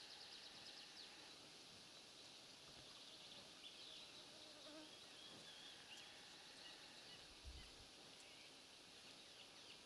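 Near silence of outdoor ambience: a faint buzz of flying insects and a few faint, distant bird chirps, with a soft low bump about seven and a half seconds in.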